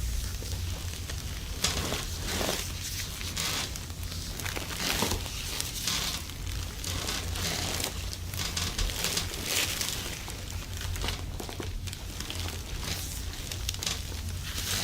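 Hands rubbing and kneading during a massage: irregular rustling and crinkling friction strokes, over a low steady hum.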